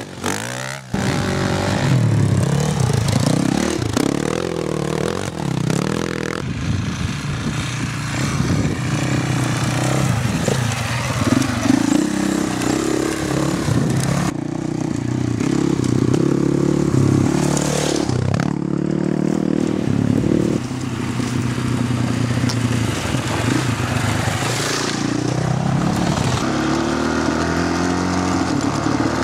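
Enduro dirt bike engines revving up and down as they are ridden hard over rough dirt tracks. Several shots are cut together, so the engine sound changes abruptly a few times.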